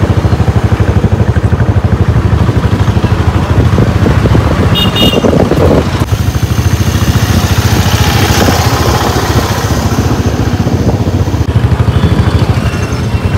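Riding a motorised two-wheeler through traffic: wind buffets the microphone with a loud, fluttering low rumble over engine and road noise. There is a brief high beeping about five seconds in.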